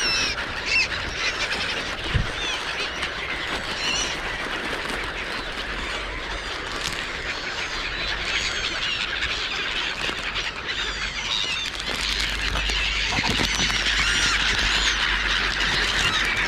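A flock of wild birds calling over one another: a steady chatter of many short, high calls that grows a little louder in the last few seconds.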